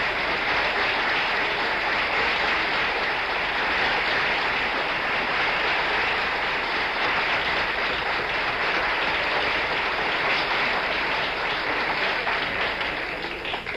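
Applause, steady and sustained, dying away near the end.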